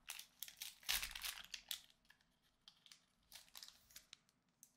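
Pokémon booster pack's foil wrapper being torn open and crinkled by hand. The crackles are dense in the first two seconds, then thin out into softer, scattered crinkles.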